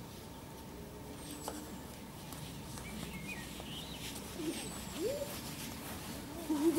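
Quiet open-air background with a few small birds chirping. Short rising-and-falling voice-like calls come about four and a half seconds in and again just before the end, louder the second time.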